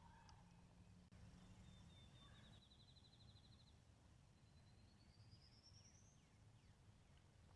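Near silence in the woods with faint songbirds: a fast trill of rapidly repeated notes about two to four seconds in, then a second trill that rises in pitch around five to six seconds in. A faint click comes about a second in.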